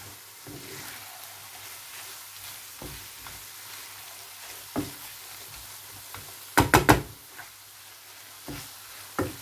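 Chicken and onion filling sizzling in a frying pan while a wooden spoon stirs it, with scattered knocks of the spoon against the pan. About two-thirds of the way through comes a quick run of about four loud knocks.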